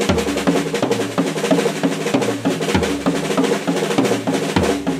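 Drum kit played in a fast paradiddle sticking, rapid strokes moving around several pitched drums, with a low drum hit every second or two.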